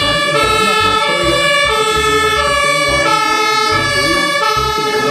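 Electronic siren sound switching back and forth between higher and lower tones about every half second, over a low pulsing beat.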